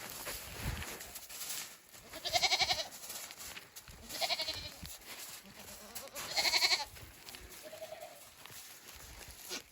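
Goats bleating: three loud, wavering bleats about two seconds apart, then a fainter short one.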